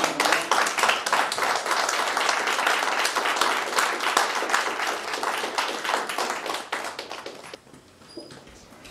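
Audience applauding, the clapping thinning out and stopping about seven and a half seconds in.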